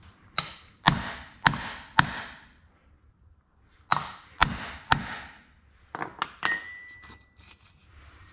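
Hammer striking a steel pipe used as a drift to drive a seized clutch thrust bearing off its carrier: four blows about half a second apart, a pause, then three more. Then a few lighter metal clinks, one ringing briefly, with the bearing now free.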